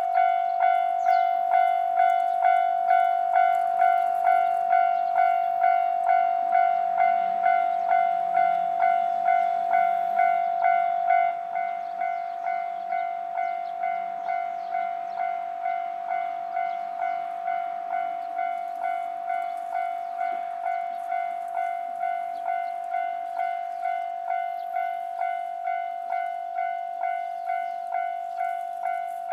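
Japanese level-crossing electronic warning bell ringing in a steady clang, about two strikes a second. It drops to a lower volume about eleven seconds in and keeps ringing.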